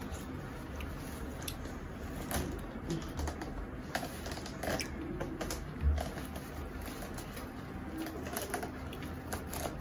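A softbox being assembled by hand: its white diffuser cloth rustling and scattered small clicks and knocks from its rods and fittings.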